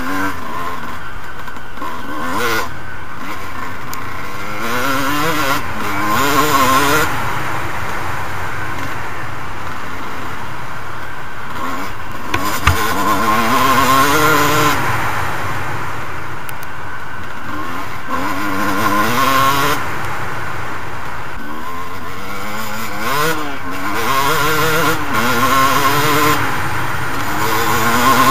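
Two-stroke Suzuki RM250 motocross bike ridden hard, its engine revving up and easing off again and again as it accelerates through the gears. There is a single sharp knock about halfway through.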